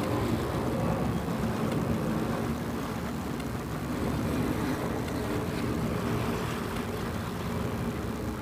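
Motorcycle cruising steadily on a highway: a constant engine drone mixed with wind and tyre noise, with no sudden events.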